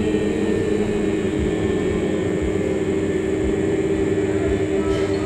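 A group of voices chanting the Quechua word "Ayni" as one long, steady drone, several pitches held together.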